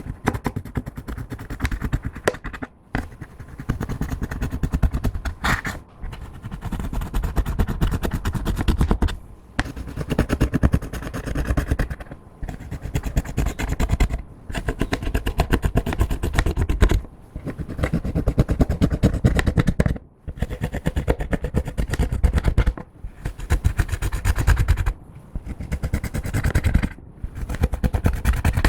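Clear slime being kneaded, folded and pressed by hand: dense runs of sticky clicks and crackles, stopping briefly every two to three seconds.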